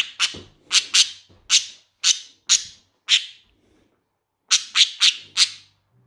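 Budgerigar chirping: a string of short, sharp calls about two a second, a pause of over a second, then four more in quick succession near the end.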